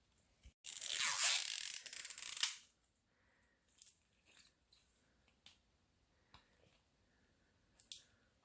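Toy packaging wrapper torn open: about two seconds of tearing, then a few faint clicks and rustles of handling.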